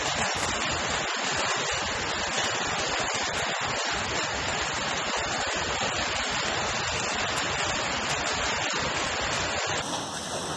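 Walnut-sized hailstones pelting down in a heavy hailstorm, a dense steady roar with stones splashing into a swimming pool. Near the end it drops abruptly to a quieter stretch of the storm.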